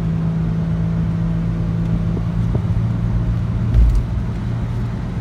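Engine and road noise inside a moving vehicle's cabin: a steady low drone over tyre hiss, with a brief low thump almost four seconds in.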